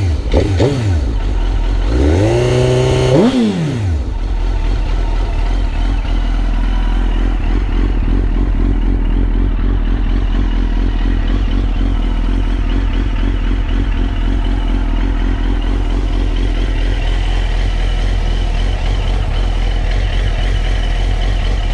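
2001 Suzuki GSX-R1000 K1's inline-four engine, breathing through a Yoshimura muffler, blipped quickly once at the start and then revved up, held for about a second and dropped back. It then idles steadily for the rest of the time, not yet fully warm, so the idle is a little less smooth than it gets when completely warm.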